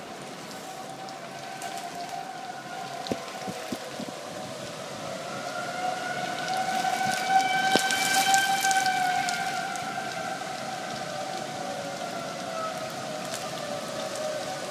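Outdoor tornado warning siren sounding one long steady wail that swells louder about halfway through and then fades again, with rain falling.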